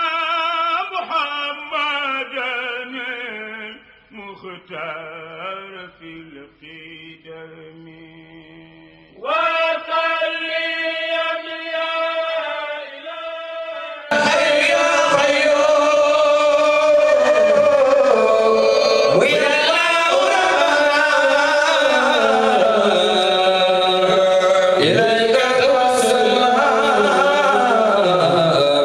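Male voices chanting Islamic devotional verses in long, sliding melodic lines. About halfway through it cuts suddenly to a louder, fuller live recording of men chanting into a microphone.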